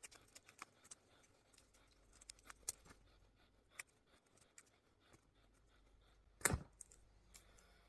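Faint, scattered crackles and ticks of insulation tape being peeled and unwound by hand from a CRT TV's degaussing coil of copper wire, with one louder crack about six and a half seconds in.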